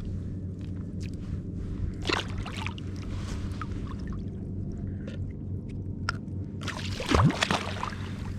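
Water splashing and sloshing in short bursts, about two seconds in and again near the end, as a redfish thrashes while being landed in shallow water, over a steady low hum.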